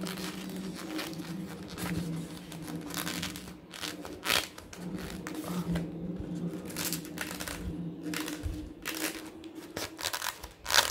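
Foam parts of a small RC jet rubbing, creaking and clicking as a vertical tail fin is pushed into its slots and the plane is handled, with irregular scrapes and a louder click near the end. A steady low hum runs underneath.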